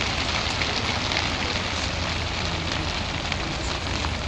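Fireworks crackling: a dense, steady hiss of many small pops, like rain or fire.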